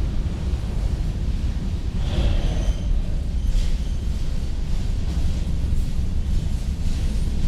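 Freight train rolling past with a steady low rumble of wheels on the rails.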